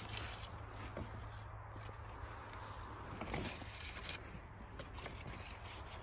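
Faint rustling and crackling of footsteps moving through dry twigs, moss and lichen on the forest floor, with a few small snaps about a second in and again around three and four seconds.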